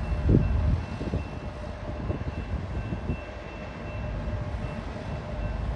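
Amtrak passenger train led by a GE P42DC Genesis diesel-electric locomotive approaching slowly: a steady low rumble, with a few dull thumps in the first second and a faint steady high tone over it.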